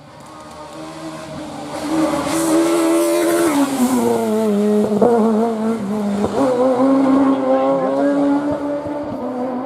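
Peugeot 306 Maxi rally car's four-cylinder engine running at high revs as the car comes up and goes by, loud from about two seconds in. The engine note drops sharply about three and a half seconds in, then holds high with a brief dip before fading near the end.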